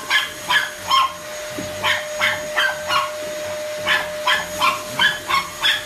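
A dog barking in quick, repeated barks at a running upright vacuum cleaner. The vacuum's motor whines steadily underneath, and the barks come two to three a second in runs with short pauses.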